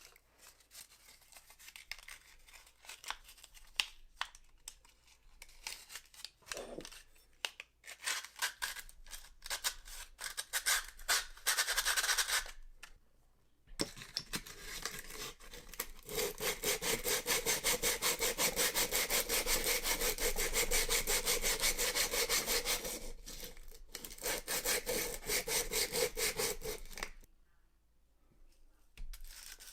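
Fast back-and-forth hand rubbing or scraping strokes, first broken up with pauses, clicks and knocks, then a long even run of strokes starting about halfway through and stopping shortly before the end.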